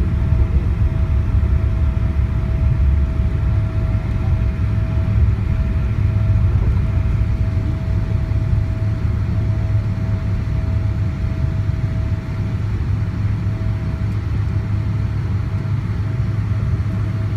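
Cabin noise inside a Boeing 777-200ER rolling out on the runway after touchdown: a steady low rumble from the wheels and engines, with a thin steady whine above it. It eases slightly as the airliner slows.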